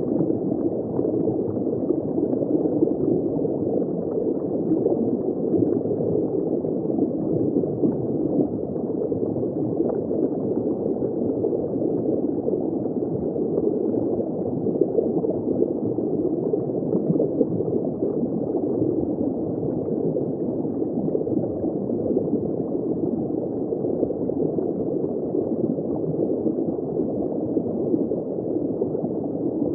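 Steady underwater bubbling and gurgling water heard from shallow water, muffled, with no high sounds.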